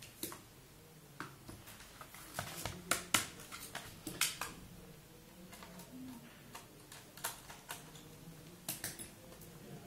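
Scattered small clicks and taps from tiny M2x5 screws and a netbook's plastic case being handled and set down during disassembly.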